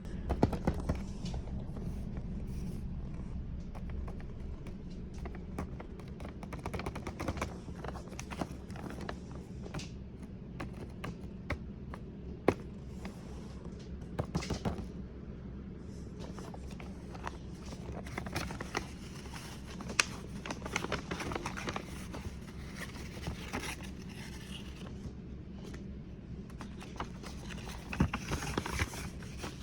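Handling noises: scattered scrapes, rubs and small taps of objects being moved about, over a steady low hum.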